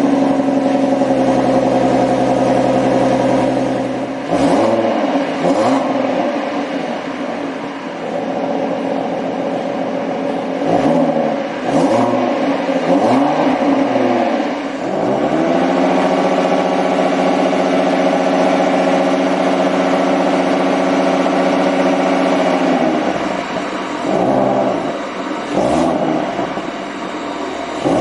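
Ford Mustang 3.7 V6 running through an exhaust whose catalytic converters are replaced with repair inserts. It idles, is blipped several times, then is held at raised revs for about seven seconds before dropping back, followed by two more blips near the end.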